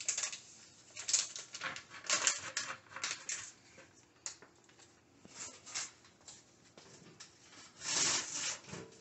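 Plastic scraping and clicking of a trigger-spray head being screwed onto a plastic spray bottle, in a run of short, irregular twists, with a longer scrape near the end.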